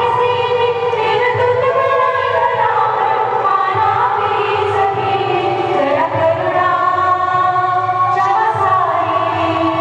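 A group of voices singing a song together, held notes gliding from one to the next without break.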